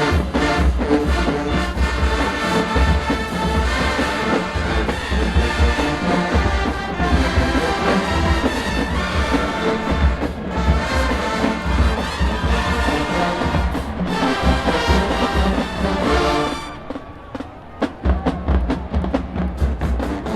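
HBCU-style marching band playing full out: brass section with drums keeping a steady beat. Near the end the brass cuts off and only the percussion carries on.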